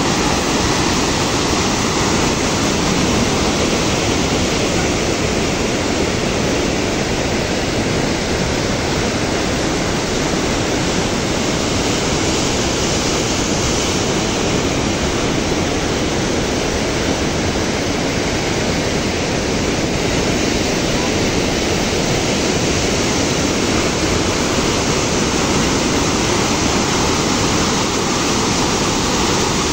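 Flooding river: muddy floodwater rushing past in a loud, steady torrent, with water spilling over a wall.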